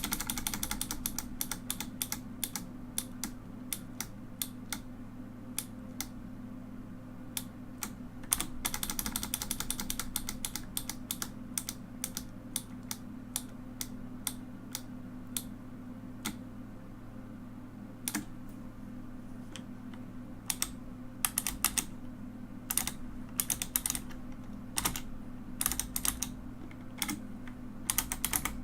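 Mechanical keyboard keys clacking as they are pressed: quick runs of keystrokes at the very start and again about eight to ten seconds in, scattered single presses between, growing busier near the end. A low hum sits underneath.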